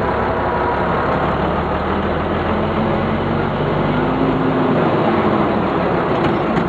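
Vintage fire engine's engine running steadily as it moves off slowly, heard from inside its open cab. The engine note shifts about four seconds in.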